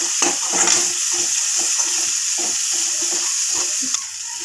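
Onion-tomato masala sizzling in a kadhai as a metal spatula stirs and scrapes it against the pan in quick repeated strokes. The masala is being fried (bhuna) until done.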